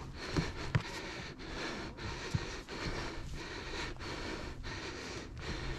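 Heavy huffing and puffing of a hiker climbing steep stairs, quick rhythmic breaths through a face mask, with a few footsteps on the wooden ties and gravel.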